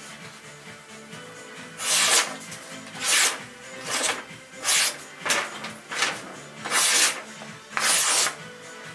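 Large fixed-blade knife rasping through material in short strokes, about one a second, starting about two seconds in, over faint background music.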